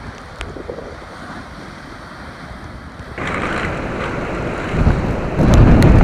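Rough storm surf breaking and rushing in typhoon wind. About three seconds in the sound jumps louder, and strong gusts buffet the microphone with low rumbling blasts near the end.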